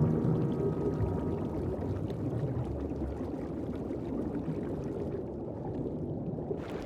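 Underwater ambience: an even, low wash of moving water, with a held music chord fading out in the first second.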